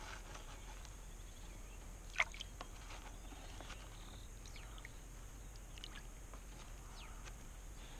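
Faint water sloshing in a plastic gold pan worked in a tub of water, with a few light clicks and one sharper click about two seconds in.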